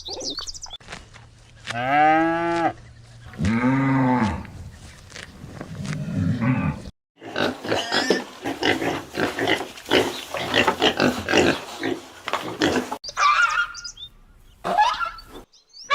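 Animal calls from more than one animal in sequence. About two seconds in come two drawn-out calls that rise and then fall in pitch. After a brief break there is a long run of rapid, rough calls in quick succession.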